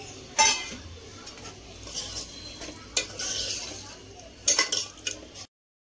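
Steel spoon stirring rice, water and chopped vegetables in an open pressure cooker, scraping and clinking sharply against the pot a few times. The sound cuts off suddenly about half a second before the end.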